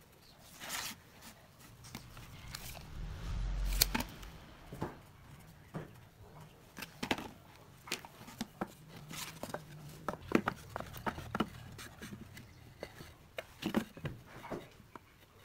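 Pine boards being handled, laid down and fitted together on a wooden workbench: irregular light knocks and clacks of wood on wood, with a dull thump about four seconds in.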